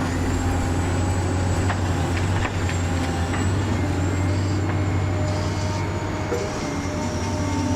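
Radio-controlled toy truck running with a steady low engine-like drone and a thin high motor whine.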